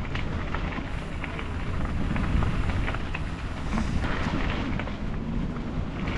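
Wind buffeting the microphone: a steady low rumble with scattered small clicks and ticks.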